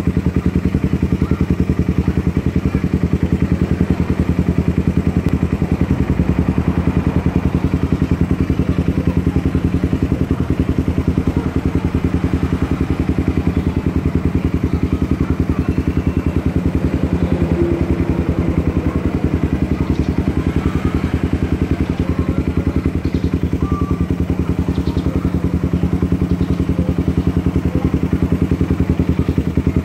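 Motorcycle engine idling steadily through a Thai-made DBS aftermarket slip-on exhaust, a rapid even pulse with a deep, bassy note.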